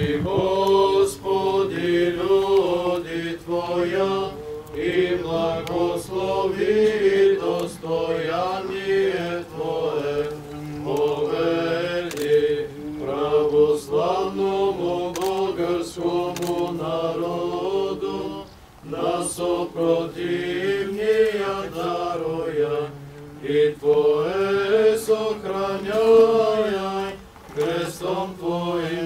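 Eastern Orthodox priests chanting a liturgical hymn in male voices, a slow melismatic line held on long notes, breaking off briefly twice for breath.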